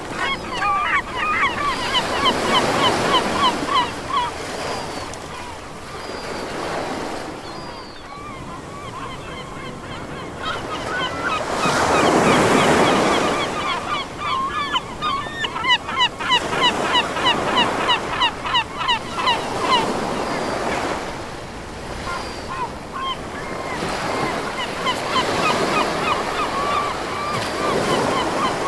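Surf and wind on the microphone in swelling gusts. Over them a bird calls in quick runs of short repeated notes.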